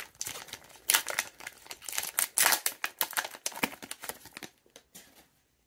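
Foil wrapper of a Kayou Naruto tier 4 booster pack crinkling and tearing by hand as it is opened and the cards are pulled out. An irregular crackling rustle that thins out and stops about a second before the end.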